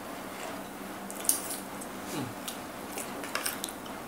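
Metal spoons clicking and scraping against a plate of egg in sauce, with chewing; a handful of sharp clicks, the loudest about a second in and a cluster near the end.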